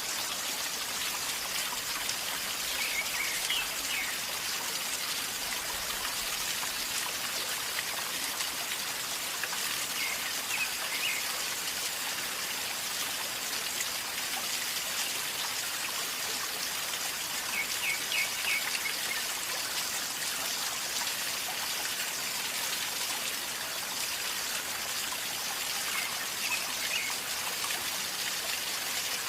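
A river flowing and gurgling steadily over stones. A bird gives short high chirps now and then, about four times.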